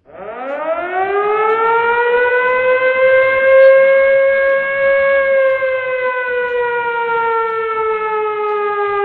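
A siren winding up: its pitch rises steeply over the first two seconds, holds steady, then sinks slowly while the wail goes on.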